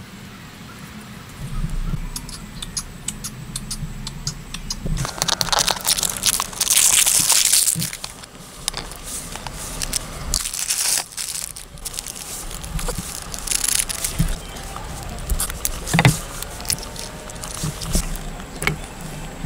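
Plastic instant-noodle wrappers crinkling and tearing in bursts as the packets are opened and handled, over the crackle of a wood campfire.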